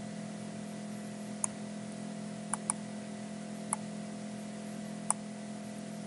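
Computer mouse clicking: a single click about a second and a half in, a quick double click a second later, then two more single clicks, over a steady low hum.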